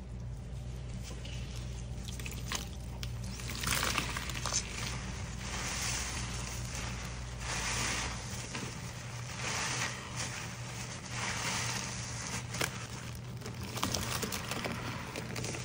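Two horse sponges caked in powdered detergent and cleaner, squeezed and kneaded by gloved hands in a stainless steel bowl. The wet squelching and crackling fizz of foam and grit comes in repeated squeezes, starting a few seconds in.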